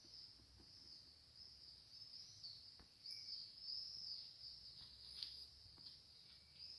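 Faint, steady high-pitched insect trilling, with a few soft clicks and taps over it.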